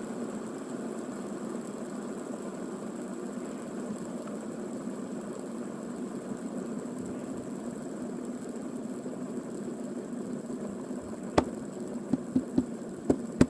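Two ball-bearing fidget spinners whirring steadily as they spin down side by side. Several sharp clicks come in the last two seconds.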